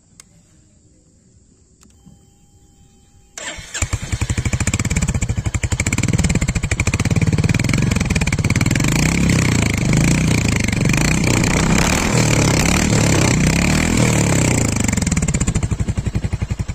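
Royal Enfield Hunter 350's single-cylinder 349 cc engine starts about three seconds in. It then runs steadily through its stock exhaust and dies away near the end.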